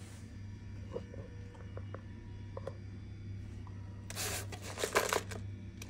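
Cardboard boxes being handled and shifted, with a few light clicks and then two short scraping rustles about four seconds in, over a steady low hum.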